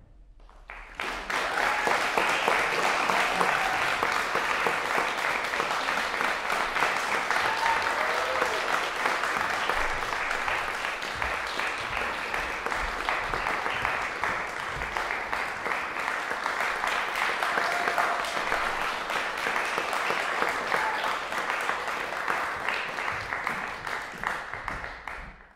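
Audience applauding a solo cello performance, starting about a second in, holding steady and cutting off suddenly at the end.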